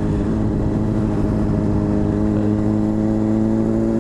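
Honda CBR600RR inline-four through an aftermarket slip-on exhaust, running steadily at low revs as the bike rolls along, with road noise underneath.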